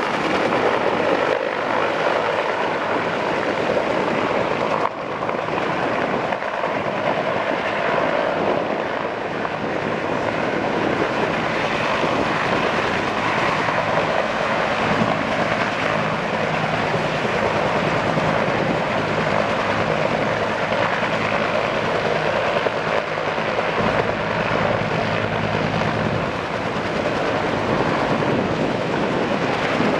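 Firefighting helicopter hovering low over a lake with its snorkel hose in the water, refilling its tank: steady rotor and turbine noise, with a brief drop in level about five seconds in.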